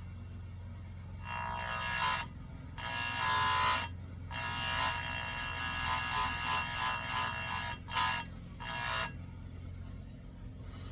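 Electric chain grinder's wheel grinding the cutters of a chainsaw chain: a high-pitched grinding whine in five bursts, the middle one about three seconds long, the last two short. Under it the grinder motor hums steadily.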